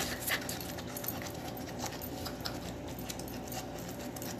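Faint scattered taps and scrapes of a small kitchen knife working a ball of grated food mixture, over a steady low hum.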